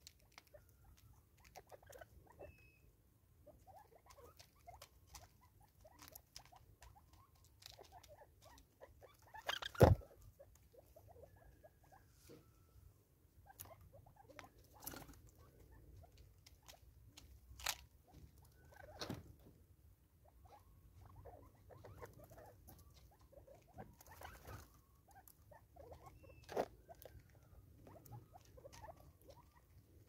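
Spurfowl pecking seed from a plastic bottle feeder on a wooden stump: an irregular patter of light beak taps and clicks, with one much louder knock about ten seconds in.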